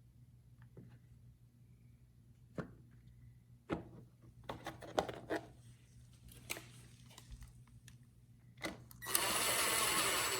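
Scattered light clicks and knocks of parts being handled, then a loud rushing hiss lasting about a second near the end.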